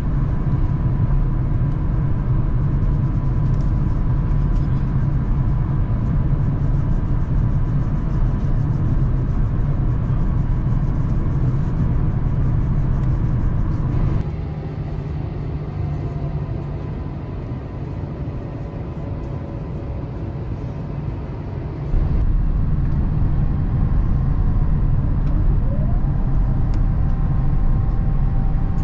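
Steady low rumble of engine and airflow noise inside an Airbus A350-1000's cabin on the approach to landing, with a faint steady whine. The rumble turns abruptly quieter about halfway through, comes back just as suddenly about eight seconds later, and a faint whine glides up and down near the end.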